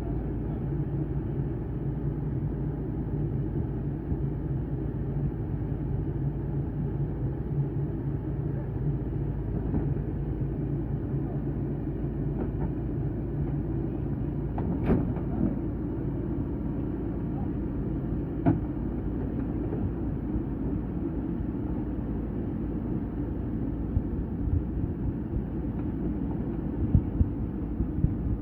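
Kobelco SK220 hydraulic excavator's diesel engine running steadily under work, with a couple of sharp knocks about halfway through and a few more near the end.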